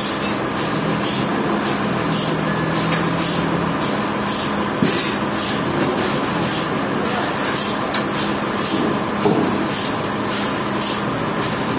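Sawmill machinery running steadily under load, with a constant hum and a high hiss that pulses about twice a second.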